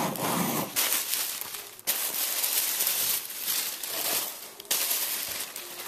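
Package wrapping crinkling and tearing as a mailed parcel is unwrapped by hand.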